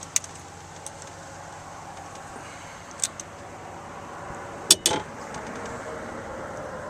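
Steady wind noise with a few sharp clicks: one right at the start, one about three seconds in, and the loudest pair about five seconds in.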